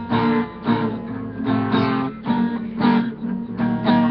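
Acoustic guitar strumming chords in a steady rhythm, about two to three strums a second, with no singing.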